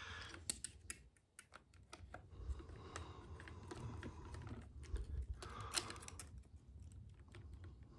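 Light, irregular clicks and taps of a small hex driver and plastic RC-truck parts being worked, as a screw is being backed out of a plastic part whose screw seat is wallowed out.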